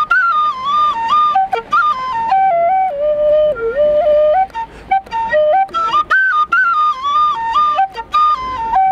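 Background music: a flute-like melody moving in quick steps between held notes, with light accompaniment.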